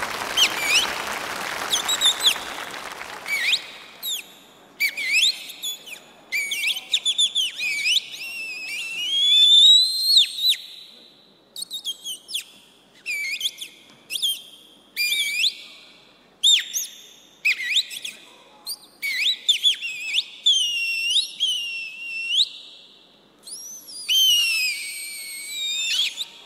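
Applause dying away over the first few seconds, giving way to a long run of whistled bird-like calls. Each call is a short glide up or down, high-pitched with overtones, a fraction of a second to about a second long, repeated with brief gaps as the opening of the dance music.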